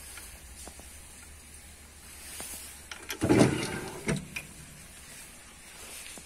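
A wooden drawer pushed shut with a short, stiff wood-on-wood scrape about three seconds in, the drawer seeming to stick; a few light clicks of a small metal latch and hardware around it.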